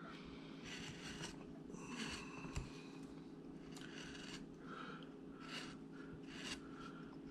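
A hand-held V-tool carving chisel slicing into wood in short, faint strokes, about one a second, over a steady low hum.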